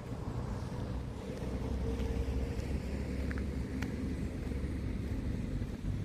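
Low, steady rumble of a motor vehicle's engine, with a few faint clicks.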